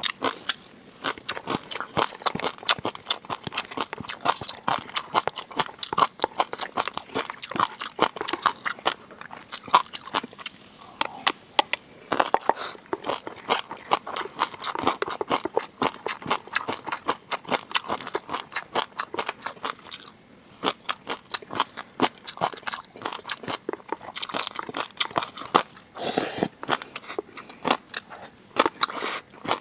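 Close-miked ASMR eating of seafood: steady chewing and biting with many quick, crisp, wet clicks, easing off briefly about twenty seconds in.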